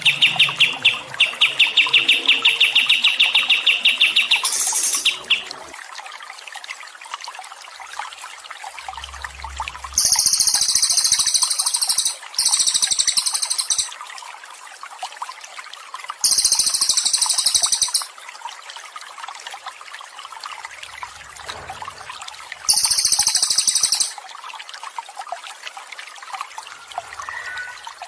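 Songbird song: a fast, high trill for about the first five seconds, then four short bursts of very high, shrill song, each lasting a second or two, with steady trickling water underneath.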